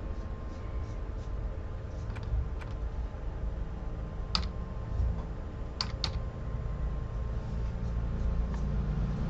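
About five sharp clicks at a computer, like keys or buttons being pressed, spread over a steady low room hum with a faint constant tone.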